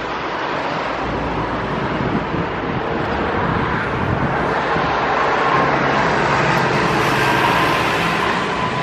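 Steady vehicle noise, a rumble and hiss with a faint steady whine, swelling louder and brighter about six to eight seconds in.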